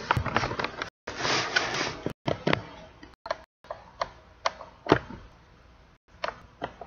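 Handling noise from a handheld camera being moved about: scattered clicks and knocks, with a short stretch of rustling hiss about a second in. The sound cuts out to dead silence several times for a moment.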